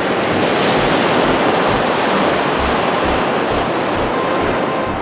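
Ocean surf breaking and washing up the beach in a steady rush, with wind buffeting the microphone in low, irregular thumps.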